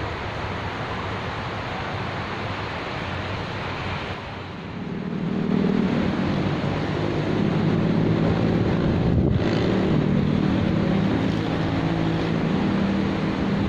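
Steady rushing wind noise on the microphone. About five seconds in, a louder engine hum comes in and keeps running, its low pitch wavering.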